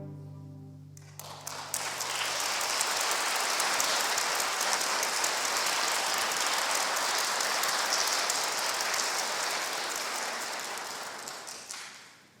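A string orchestra's last chord dies away, then an audience applauds. The applause starts about a second in, holds steady, and fades out near the end.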